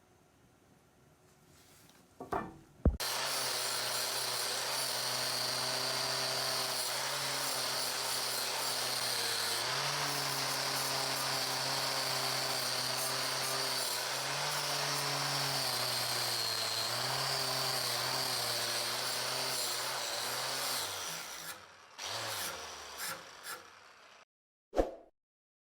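An electric power tool with an abrasive head working the knife, running steadily for about eighteen seconds. Its motor hum dips slightly at times as it is pressed into the work, under a steady hiss. Near the end it is switched off and the hum winds down, followed by a few light knocks.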